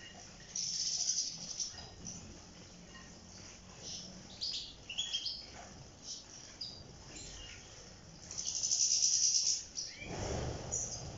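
European goldfinches bathing in shallow water dishes: two stretches of splashing and fluttering in the water, with short chirping calls in between. About ten seconds in, a loud whoosh of wingbeats as the birds fly up from the dishes.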